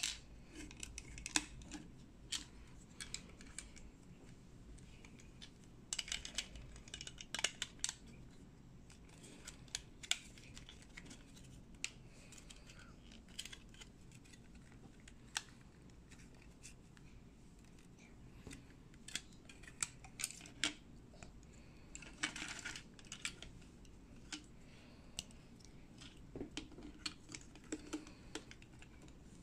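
Small Lego-compatible plastic bricks being handled and pressed together: faint, irregular clicks and light plastic rattles, with busier runs of clicking about a quarter of the way in and again about three-quarters through.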